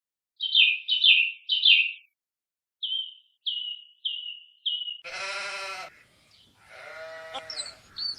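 A run of animal calls: three high, falling squeaks, then four shorter high chirps, then a long buzzy bleat-like call about five seconds in, followed by a wavering call near the end.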